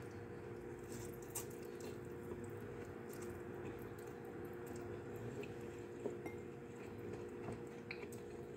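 Person eating noodles with chopsticks: soft chewing and wet mouth sounds, with scattered small clicks, over a steady low hum.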